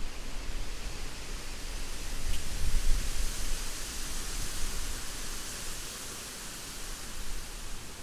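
Rain falling in a forest: a steady hiss, swelling a little around the middle, with an uneven low rumble underneath.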